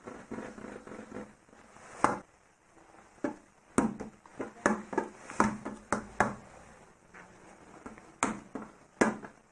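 Hand-rolling cookie dough into balls gives a soft rubbing sound for about two seconds. It is followed by a series of separate dull taps and knocks as the dough balls are set down on the worktop, one is pressed flat under the palm and a wooden rolling pin is taken up near the end.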